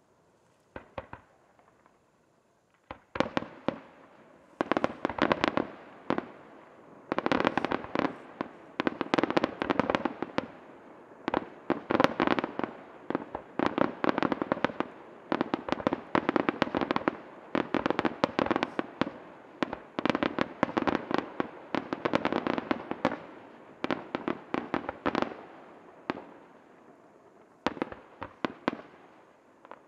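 Aerial fireworks shells bursting. After about three seconds of near quiet with a couple of faint pops, a rapid barrage of sharp bangs follows, many a second. It pauses briefly near the end, then starts again.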